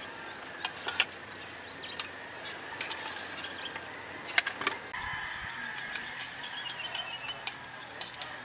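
Spoons clinking against stainless steel bowls in sharp, separate clicks, the loudest about four seconds in. A small bird chirps a quick run of short notes over the first second and twitters again from about five seconds.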